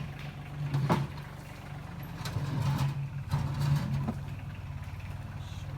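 A vehicle engine running steadily, with a few knocks and clatters about a second in and again in the middle.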